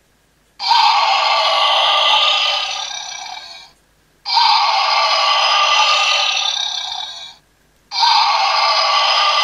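Electronic dinosaur roar sound effect from the small built-in speaker of a Zuru Smashers light-up toy, played three times in a row. Each roar is the same, about three seconds long, starting suddenly and fading out at its end.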